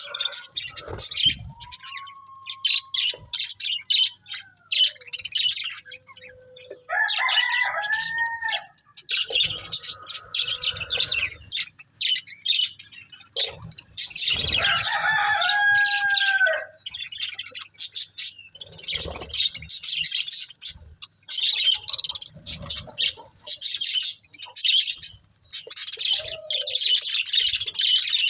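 Budgerigars chirping and chattering in a rapid, continuous stream of high chirps, with a few lower, drawn-out arching calls among them.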